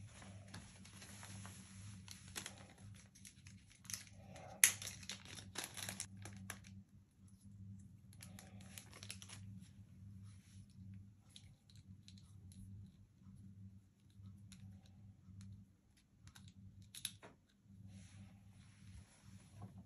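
Packaging being handled and opened, crinkling and rustling in uneven bursts with a sharp click about four and a half seconds in, over a low steady hum.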